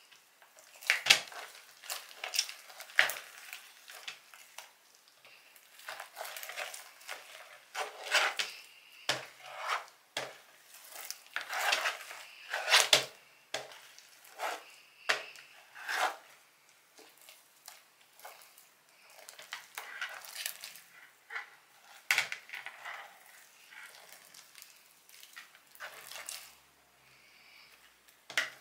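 Homemade slime being worked, with irregular clicks and short squelchy bursts that come and go. The loudest are about a second in and around the middle.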